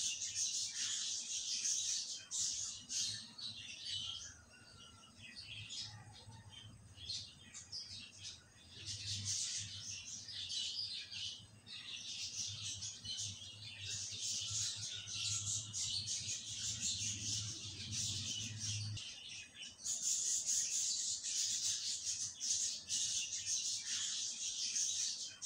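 Many small birds chirping and twittering continuously, with a faint low hum underneath that stops about three quarters of the way through.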